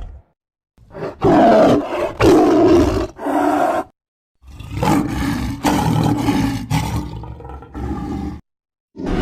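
Edited monster roar sound effects for Darkness Ghidorah: a few short roars in quick succession, then after a brief pause a longer, pulsing roar that trails off.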